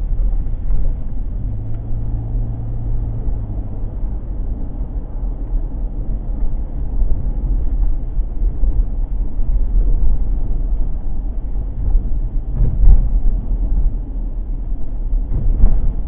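Car interior road noise while driving slowly: a steady low rumble of engine and tyres, with a faint engine hum a couple of seconds in and a few brief louder knocks from road bumps in the last few seconds. Heard through a dashcam microphone inside the cabin.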